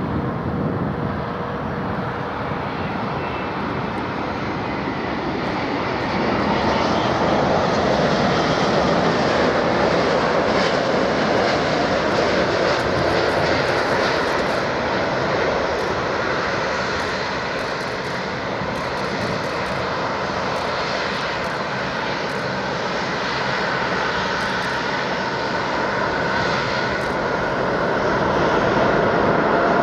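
Jet airliner engines heard from beside the runway as an Emirates Airbus A380 lands and rolls out. A steady, loud noise that grows louder about six seconds in and again near the end.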